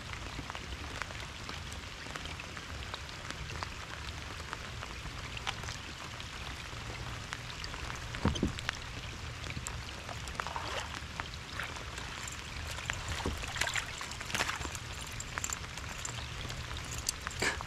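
Steady heavy rain falling on lake water, with many small raindrop ticks and a few louder taps in the second half.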